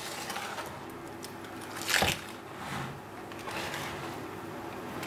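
Hand wire whisk beating a thick cream-cheese and quark filling in a plastic bowl, a continuous wet stirring with many quick strokes. There is a louder knock about two seconds in.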